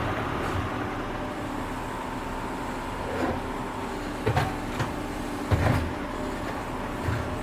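A tractor digging: its engine runs steadily, and four dull knocks and clanks come from the digging work at intervals of about a second or so.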